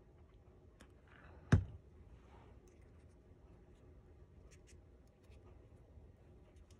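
Faint rustling and small ticks of paper being pressed and handled by fingers, with one sharp knock about a second and a half in.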